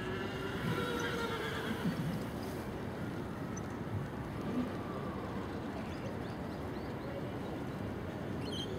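Harness pony whinnying: one wavering call of about two seconds near the start, over steady background noise.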